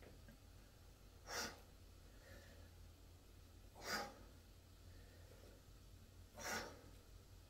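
A man breathing out hard through the mouth three times, about two and a half seconds apart, in time with dumbbell curl repetitions.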